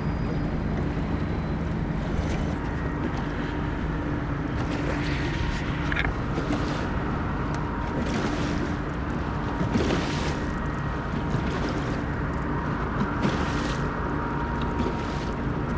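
Small fishing boat running under motor across choppy water: a steady engine and water rush with wind on the microphone, and a few splashes as the hull meets the waves.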